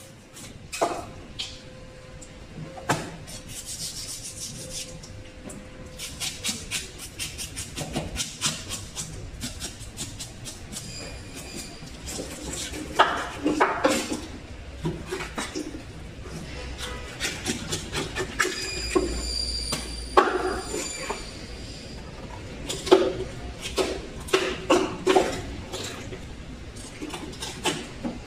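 Knife cutting through a large fish on a cutting board: runs of rapid scraping, sawing strokes as the blade works through the flesh and bone behind the head, broken by sharp knocks of the blade on the board.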